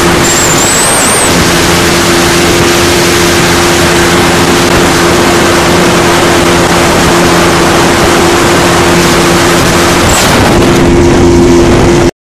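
Small boat's engine running at a steady speed with a constant hum, under a heavy rush of wind and water; it cuts off suddenly near the end.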